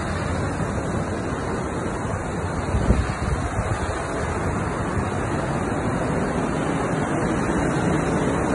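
Storm surf washing onto the beach, with wind buffeting the microphone and a brief low gust about three seconds in.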